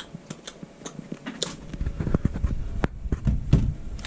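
Handling noise: irregular sharp clicks and light knocks, with a cluster of heavier dull thumps from about two to three and a half seconds in.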